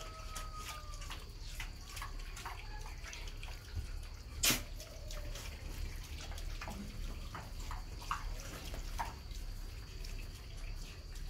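Black piglets feeding from a wet concrete floor, with wet smacking and slurping and many small irregular clicks. One sharp click stands out about four and a half seconds in.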